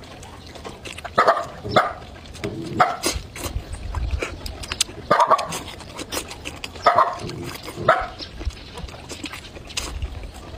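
A dog barking now and then, about six single barks spaced irregularly.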